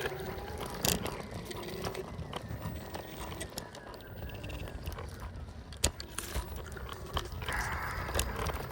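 Footsteps crunching on frosty ground over a steady low rumble, with scattered short crunches and clicks.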